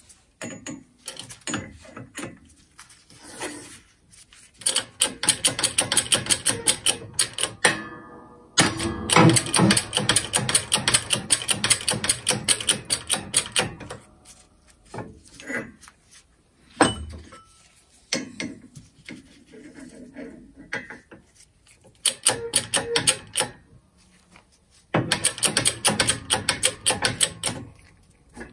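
Bursts of rapid clicking, four runs each a few seconds long, with one sharp knock in between, as a small workshop press is worked to press bearings off angle-grinder parts.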